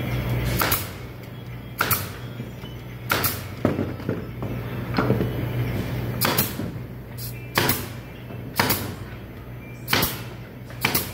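Pneumatic nail gun firing into wood about a dozen times, one sharp shot roughly every second at an irregular pace, over a steady low hum.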